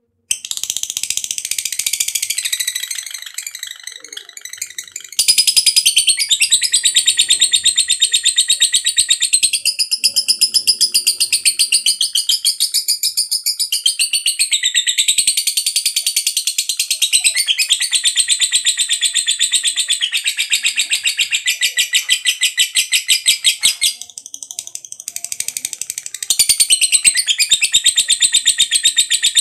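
Lovebird in a long unbroken "ngekek panjang" chatter: a loud, shrill, very rapid trill of notes wavering in pitch. It starts suddenly and runs on almost without pause, softening briefly a few seconds in and again near the end.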